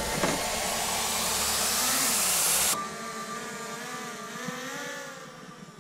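DJI Mavic Air 2 quadcopter taking off. Its propellers spin up under heavy hiss, then about three seconds in the hiss drops away suddenly, leaving a thinner propeller whine that wavers in pitch as the drone climbs and hovers.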